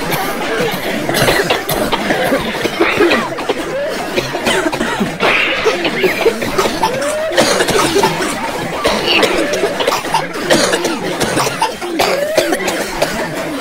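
Several people coughing again and again, mixed with overlapping voices and some chuckling.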